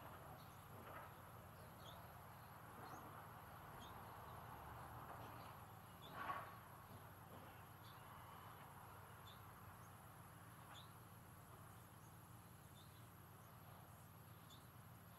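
Faint outdoor bird sounds: small high chirps about once a second, and one louder short call about six seconds in, over a low steady hum.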